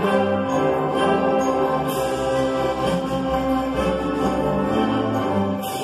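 Youth string orchestra of violins and cellos playing live: sustained chords over a low line that moves in short steps.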